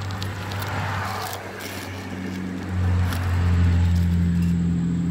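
A steady low hum of a running engine, getting louder about three seconds in, with light scraping and rustling on top.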